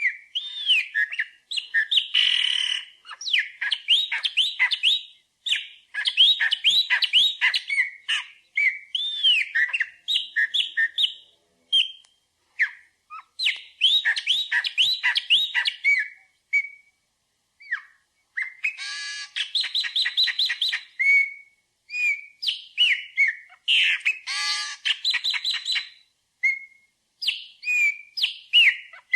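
A songbird singing in phrases of quick rising-and-falling whistled notes, separated by short pauses, with a few harsher, rasping notes mixed in.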